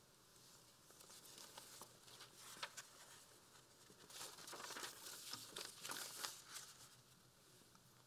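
Faint rustling and crinkling handling noise close to the lectern microphone, in irregular bursts that are heaviest from about four to seven seconds in.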